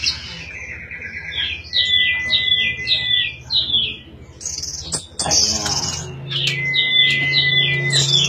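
Orange-headed thrush singing. A phrase of quick falling notes over a held whistle comes twice, with higher shrill notes in between, and there is a sharp click about five seconds in.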